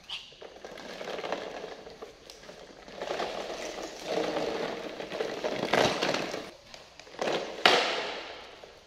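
Plastic toy dump truck rolling and rattling across a hard tiled floor in uneven stretches, with a few sharp knocks near the end, the loudest about three-quarters of the way through.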